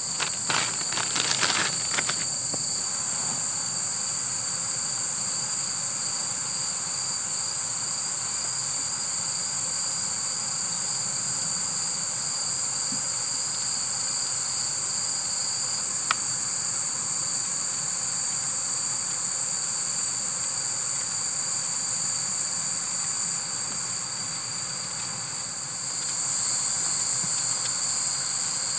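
Steady chorus of night insects: a shrill continuous high trill over a lower pulsing chirp. It dips briefly near the end, then comes back stronger. A few clicks sound in the first couple of seconds.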